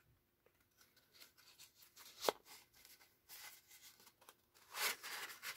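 Faint rustling and crinkling of designer paper as an origami box that is only tucked together is pulled open by hand, with one sharp snap about two seconds in and a louder rustle near the end.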